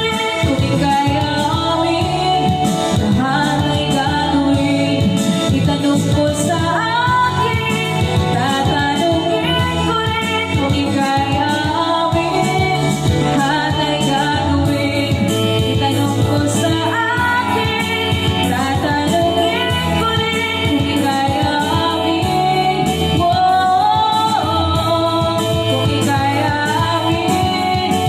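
Music with singing: a song with a melodic vocal line over steady instrumental backing.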